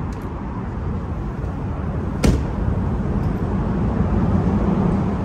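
Steady low vehicle rumble, with a single sharp click a little over two seconds in.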